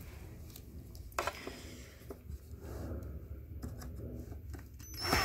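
Cordless drill-driver tightening a stiff furniture bolt in short runs, with clicks and rattles of the parts being handled, and a louder burst near the end.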